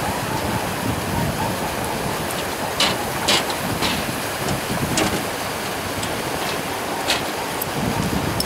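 A swollen, fast-flowing river rushing in flood beneath a suspension footbridge, heard as a steady wash of noise. Several sharp clicks and knocks stand out in the middle.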